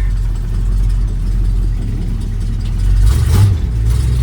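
The 460 V8 of a 1978 Ford F-350 runs with a steady low rumble as the truck creeps forward slowly in first gear. About three seconds in there is a short, louder burst.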